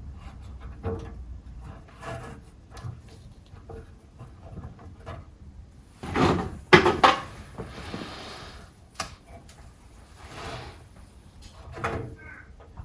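Scattered knocks and clatter of things being handled, with a louder run of clatter and rustling about six to seven seconds in.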